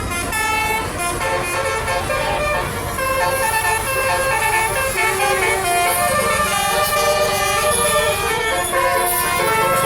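Tour bus basuri horn, a multi-tone horn that plays a melody, sounding note after note over a low rumble.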